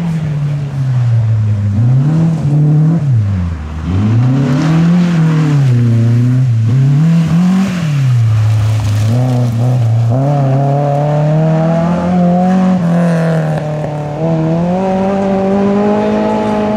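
Rally car engine revving hard, its pitch climbing and dropping again and again as the car accelerates and lifts off.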